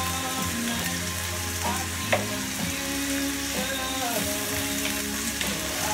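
Sliced zucchini and onion sizzling in olive oil with a splash of stock in a frying pan, stirred with a wooden spoon. A single knock sounds about two seconds in.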